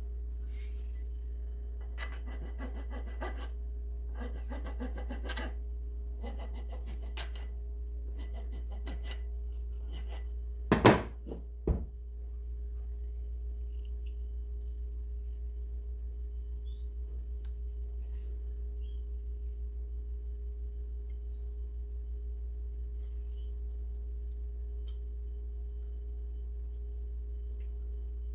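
A file rasping on wood in several bursts of strokes over the first ten seconds, dressing the end of a new axe handle and its wooden wedge down to the top of the axe head's eye. About eleven seconds in come two sharp knocks, the loudest sounds, and after that only a steady low hum.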